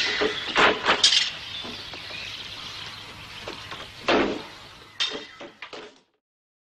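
Battle-scene sound of hand-to-hand fighting: a run of sharp clashes and thuds, with a bright ringing clash about a second in, a heavier one about four seconds in and a few more after it. The sound then cuts off suddenly.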